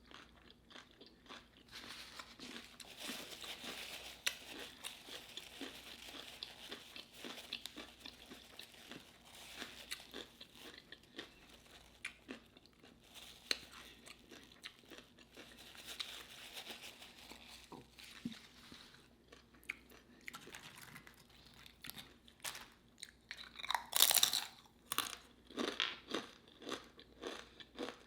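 Close-up chewing and crunching of crisp food, a run of small irregular crackles and mouth sounds, with a louder crunchy bite about 24 seconds in.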